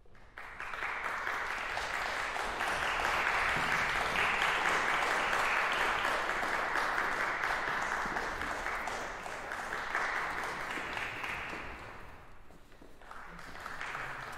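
Audience applauding in a concert hall. The clapping starts about half a second in, holds steady, and dies down about twelve seconds in, with a brief smaller swell near the end.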